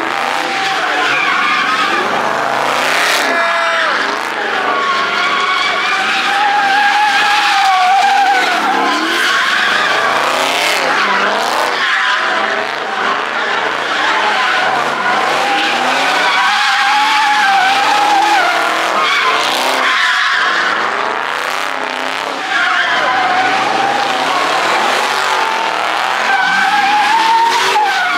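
Car drifting: tires squealing in long, wavering tones over an engine revving up and down.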